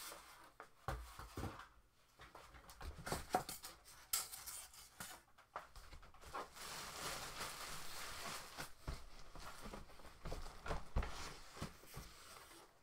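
Packaging being handled inside a cardboard box: polystyrene and cardboard pieces knocking and bumping, with a stretch of rustling and scraping in the middle.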